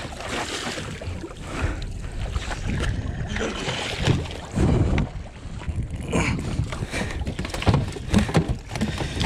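Water splashing and slapping at the side of a small fishing boat as a hooked dorado thrashes at the surface, with wind on the microphone and scattered sharp splashes and knocks, most of them in the second half.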